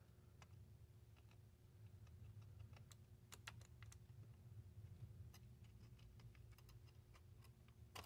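Faint scattered clicks and ticks of the small metal and plastic parts of a Dual CS-508 turntable's auto-lift trip mechanism as they are moved by hand, more frequent from about three seconds in, over a low steady hum.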